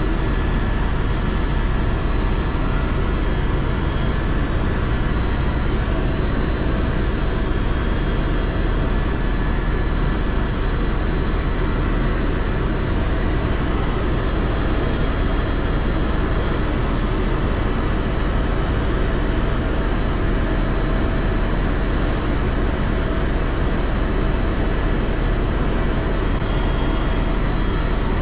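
Helicopter engine and rotor noise, a loud steady drone that holds even throughout with no change in pitch.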